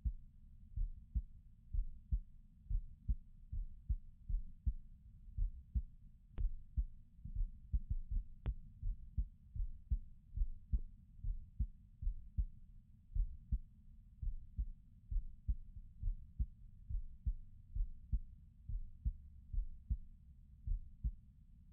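A person's heartbeat, heard as low muffled beats repeating in a steady, even rhythm.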